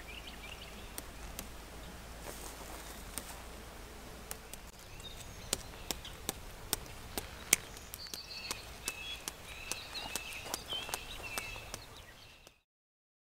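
Scissors snipping through plastic deer netting: a string of sharp, irregular clicks, the loudest about halfway through. The sound stops abruptly near the end.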